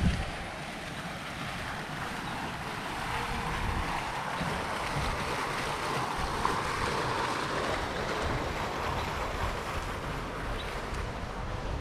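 Fountain jet splashing into its stone basin, a steady rushing of water that grows louder in the middle and fades again, with wind buffeting the microphone in low rumbles.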